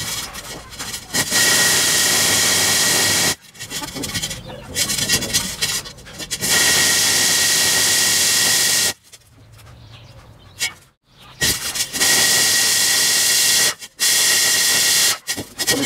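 Drill turning a dry diamond core bit into clinker brick: steady grinding in four runs of one to two and a half seconds, with short stops between.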